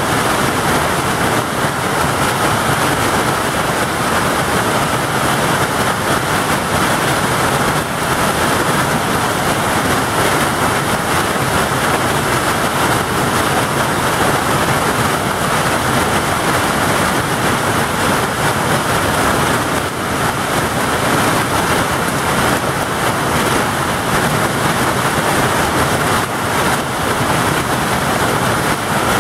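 Hailstorm: a dense, loud, steady clatter of countless hailstones striking the ground and hard objects.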